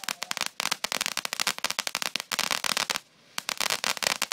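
Ground fountain firework on sand spraying sparks with dense, rapid crackling, coming in spurts with a short lull about three seconds in.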